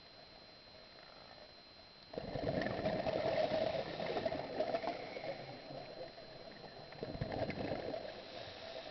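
Scuba diver's exhaled bubbles gurgling out of the regulator underwater. One burst starts suddenly about two seconds in and a second comes near the end, over a faint steady high tone.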